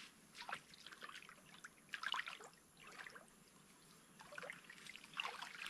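Bare feet wading into shallow lagoon water: light, irregular splashes and trickling, in a few scattered clusters.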